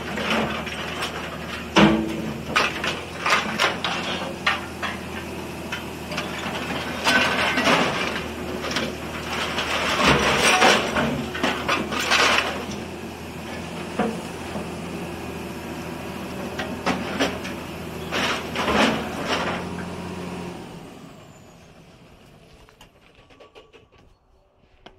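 Excavator's diesel engine running steadily while its ZATO hydraulic steel shears work a scrap steel pile, with repeated sharp clanks and crunches of scrap metal being bitten and shifted. About twenty seconds in, the engine hum and clanking die away, leaving only faint clicks.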